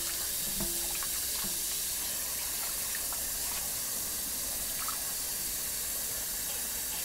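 Kitchen faucet running steadily into a bowl of water in a stainless steel sink, with hands swirling raw meat around in the water to wash it.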